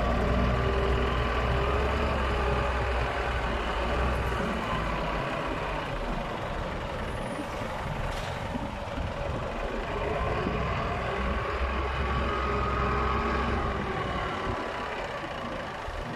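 Diesel engine of a Caterpillar 966D wheel loader running under load while it lifts and dumps a bucket of sand, the revs swelling twice, at the start and again past the middle.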